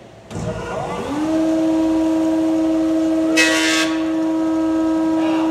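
Powermatic thickness planer switched on: its motor and cutterhead start with a thump, rise to speed within about a second, then run with a steady hum. About three and a half seconds in, a brief harsh burst as a rough board is fed into the knives.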